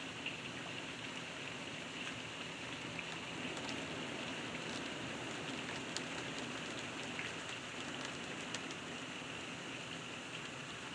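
Heavy rain falling steadily: a continuous hiss with scattered sharper drop ticks.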